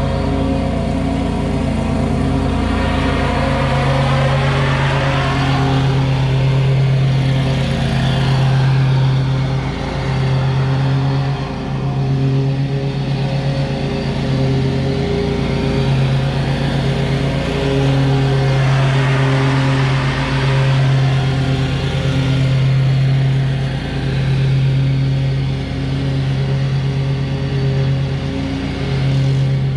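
Stand-on zero-turn lawn mower engine running steadily at an even pitch while mowing. The sound swells and shifts as the mower moves about the lawn.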